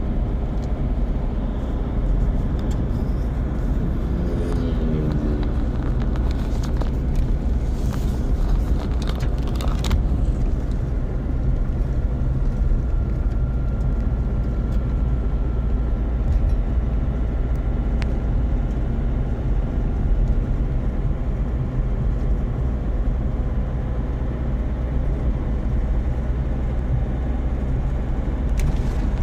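A car's engine running steadily while driving, with a low hum and road noise throughout. A few brief noisy rushes come between about seven and ten seconds in.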